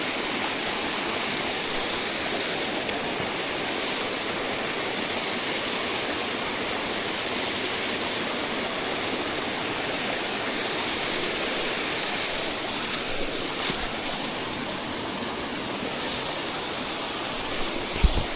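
Steady rush of a mountain brook's flowing water, with a few faint clicks and a brief low knock near the end.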